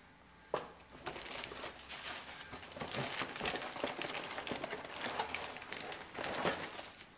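Plastic wrapping and cardboard packaging crinkling and rustling as parts are handled, with a sharp click about half a second in.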